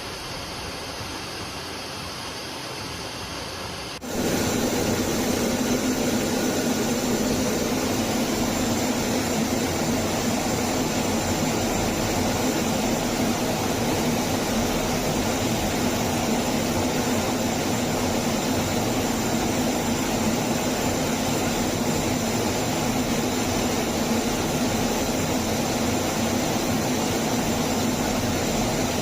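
Fighter jet engine running steadily, cutting in abruptly about four seconds in, with a constant low hum and a thin high whine; a quieter steady sound comes before it.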